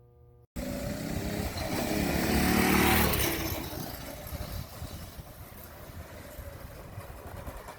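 Mini bike's small engine running as it rides by, getting louder to a peak about three seconds in and then fading away. The sound cuts in abruptly about half a second in.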